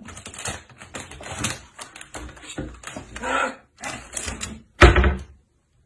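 Sable scrabbling over the top edge of a wooden cabinet and clambering down into it: a quick, irregular run of claw clicks and scratches on wood, with one louder thump about five seconds in.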